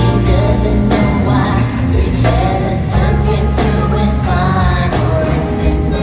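Live band playing R&B-pop through a concert PA, with female voices singing over drums, bass and guitar.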